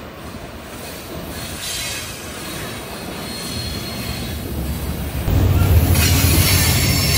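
Freight train of covered hopper cars rolling along the track, its steel wheels squealing on the rails. The sound grows steadily louder, with a low rumble and brighter squeal rising sharply about five seconds in.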